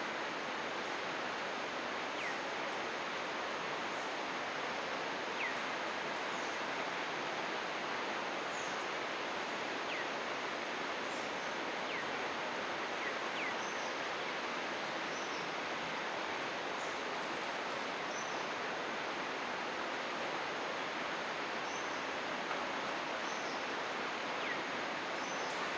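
Steady rush of running water, with birds chirping now and then: several short falling whistles and brief, very high notes repeated throughout.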